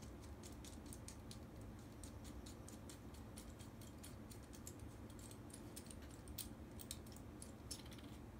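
Faint, irregular light clicks and taps of small hard parts being handled, as a dashcam's anti-theft mounting bracket and its screw are worked by hand; the clicks come a little thicker near the end.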